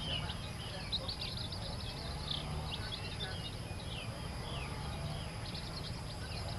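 Newly hatched chicken chicks peeping continuously, many short, high, falling cheeps overlapping one another, over a low steady rumble.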